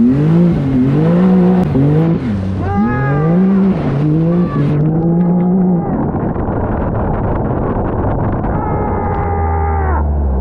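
Can-Am Maverick side-by-side's engine revving up and down over and over on a flooded trail, then held at steady high revs. Near the end, the engine note cuts off suddenly as the machine ploughs into deep water that sprays over the cab.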